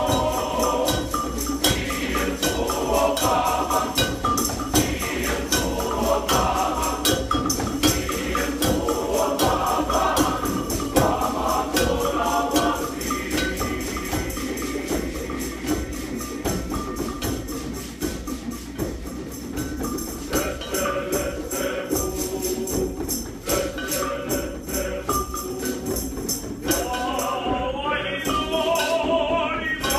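Men's choir singing in parts over a steady beat of hand drums and jingling percussion. The voices thin out around the middle, and the full choir comes back in strongly near the end.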